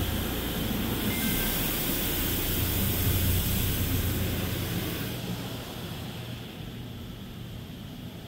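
High-pressure water jets of a touchless automatic car wash spraying the car, heard from inside the cabin as a steady hiss over a low rumble. The spray grows stronger about a second in and fades after about five seconds.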